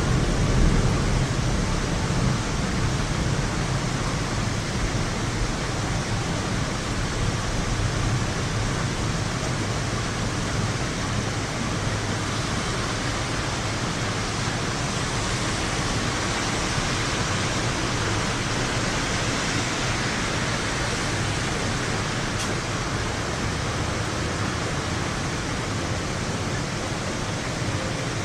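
Steady hiss of heavy rain during a thunderstorm, with a low rumble in the first several seconds that dies away.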